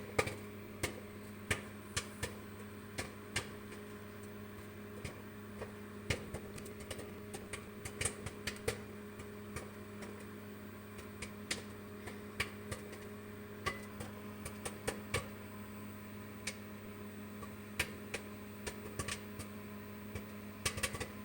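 Microwave oven running with a steady hum while a bag of microwave popcorn pops inside it in sharp, irregular pops, about one or two a second. The popping has not yet slowed to the occasional pop that means the popcorn is done.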